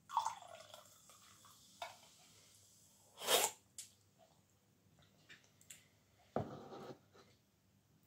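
Fanta Fruit Twist poured from a can into a glass mug for about a second at the start. About three seconds in comes a loud, brief slurp from the mug, and a short dull knock follows near the end.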